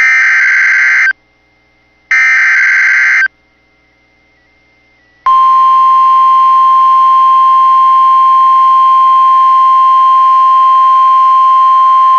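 Emergency Alert System SAME header: two bursts of warbling digital data tones, each about a second long with a second's gap. About five seconds in, the steady single-pitch NOAA Weather Radio warning alarm tone starts and holds. It announces a severe thunderstorm warning.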